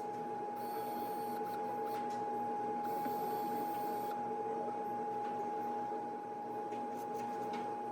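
Steady machine hum with a thin high whine over it, and a few faint light clicks.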